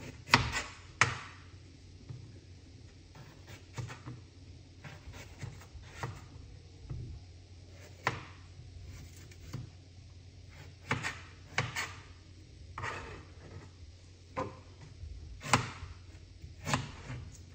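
A knife working a piece of fresh ginger on a cutting board: irregular knife knocks and short scrapes, a couple of seconds apart, over a low room hum.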